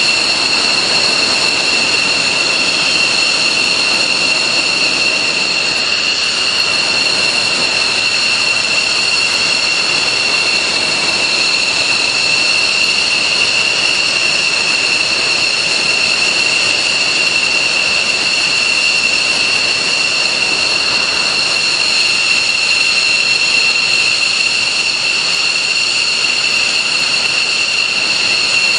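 F-16 fighter's turbofan engine running at ground idle: a steady, high-pitched whine of several fixed tones over a constant rushing roar.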